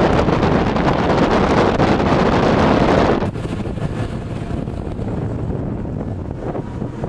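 Wind buffeting the microphone aboard a rigid-hull inflatable boat: a loud, even rush that drops off abruptly about three seconds in. After the drop a quieter rush remains, with a faint steady hum from the boat's twin 225 hp Mercury outboards under way.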